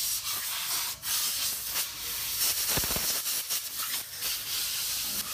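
Compressed-air blow gun hissing as a mechanic blows dust off the underside of a rally car, with a brief break about a second in.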